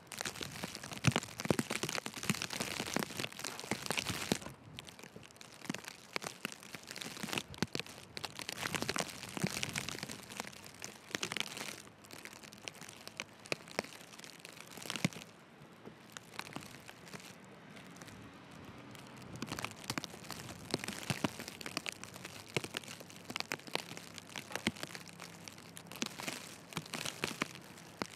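Footsteps crunching in deep, fresh snow: a steady walking pace of soft crunches and squeaks, with snowfall and wind hissing over the microphone.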